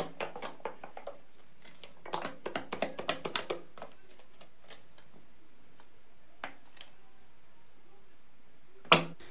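Light clicking and tapping in two quick runs in the first few seconds, then a single click, with a brief louder sound near the end.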